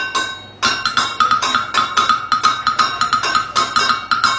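Bucket drumming: wooden sticks striking upturned plastic buckets. One hit rings out, then from just over half a second in comes a fast, steady roll of hits, about five a second.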